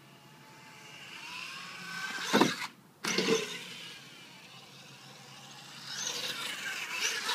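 Electric motor of a Vaterra Twin Hammers RC rock-bouncer whining up in pitch as it speeds toward a ramp, then two loud clattering impacts a little under a second apart as the truck leaves the ramp and lands. Near the end the motor whines again as the truck drives on across the grass.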